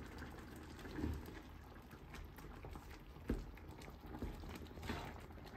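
Pot of chicken curry bubbling faintly as the sauce thickens at the boil, with a few soft clicks, the sharpest just past the middle.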